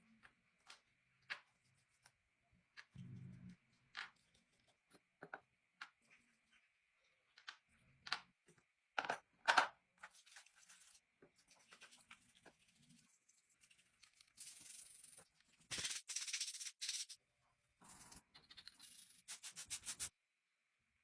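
Hand-work sounds from a restoration job: scattered clicks and taps, two sharper strikes about nine to ten seconds in, and several short hissing, scraping stretches in the last third.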